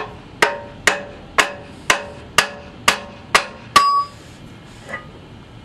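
A hammer striking the steel wedge bar of a new manual wedge lock excavator coupler, about nine even blows at roughly two a second, each with a short metallic ring. The blows are knocking loose a wedge bar that is stuck tight because the coupler is new. The last blow rings on briefly, then only faint taps follow.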